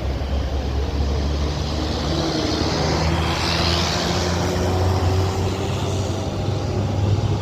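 Intercity bus passing close by, its engine giving a steady low drone that rises slightly in pitch toward the end, with a burst of hiss about halfway through.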